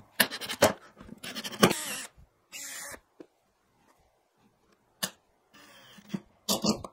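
Cordless driver running in short bursts, sinking screws through a pine cleat into a wooden panel, with clicks and knocks of wood and screws being handled in between.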